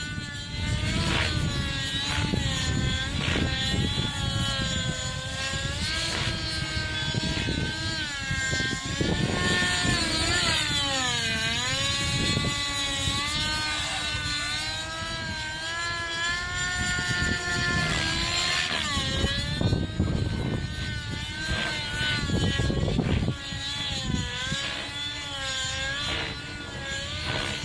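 Nitro (glow-fuel) engine and rotor of a TSA Infusion 600N Pro RC helicopter in flight overhead. Its pitch keeps sliding up and down as it flies about, with a deep dip about ten to twelve seconds in and another near nineteen seconds.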